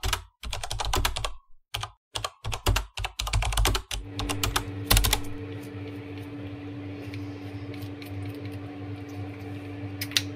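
Rapid computer-keyboard typing clicks in short bursts with gaps, a sound effect over the intro, for about four seconds. Then a steady electrical hum takes over, with a sharp click about a second later and a couple of scissor snips near the end.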